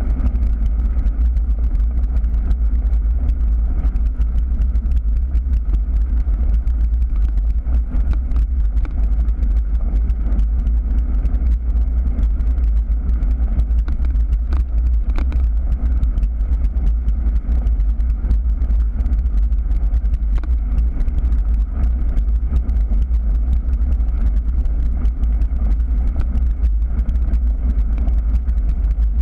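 Steady, loud low rumble of wind buffeting and gravel-tyre vibration picked up by a camera mounted on a moving bicycle, with faint scattered crunching ticks from the gravel.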